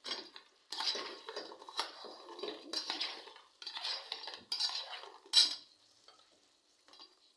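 A spoon scraping and clinking against a pan while fried popcorn chicken pieces are tossed in a sticky honey and soy sauce glaze, in irregular strokes with one sharp clink about five seconds in, then falling quiet.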